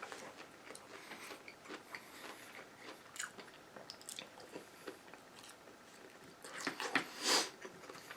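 A person chewing and biting Chinese takeout food close to the microphone: faint scattered mouth clicks, with a louder stretch of chewing about seven seconds in.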